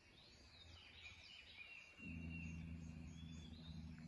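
Birds calling faintly at dawn, short chirps and whistles. About two seconds in, a low steady hum joins them.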